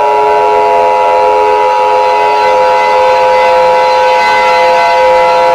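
Emergency Alert System attention signal: the steady two-tone alert, pitched just under 1 kHz, held without a break. A steady siren-like drone of lower held tones plays underneath.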